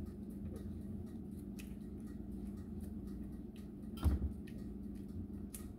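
Silicone spatula scraping and clicking against a glass mixing bowl as thick corn batter is scraped out into a round metal baking pan, with one louder knock about four seconds in. A steady low hum runs underneath.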